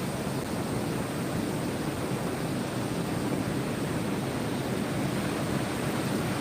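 Ocean surf as a steady, even rushing noise, heaviest in the low range, with no separate wave crashes standing out.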